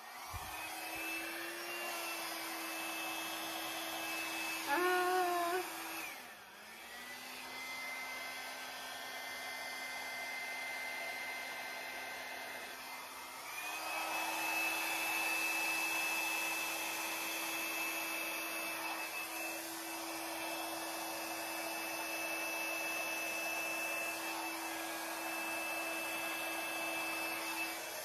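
Handheld hair dryer running, a steady motor whine with a rush of air, blowing wet acrylic paint outward into a bloom. Its pitch and level drop about six seconds in and come back up to the higher whine about seven seconds later. It switches off near the end.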